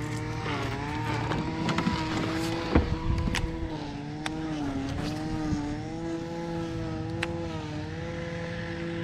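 A boat's motor running with a steady humming whine that drifts slightly up and down in pitch as its speed changes, with a few sharp clicks over it.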